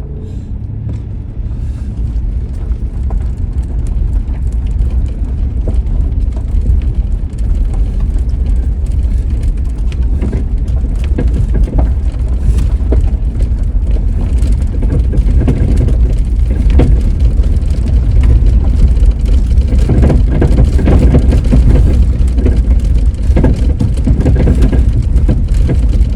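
Old four-wheel-drive truck crawling over a rough, bumpy dirt road at a few miles per hour: a steady low rumble of engine and tyres with frequent knocks and rattles from the bumps, getting louder over the second half.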